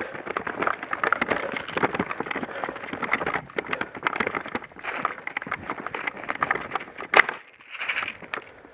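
Footsteps crunching and brushing through dry undergrowth, a dense crackle of twigs and leaves, with one sharper snap about seven seconds in.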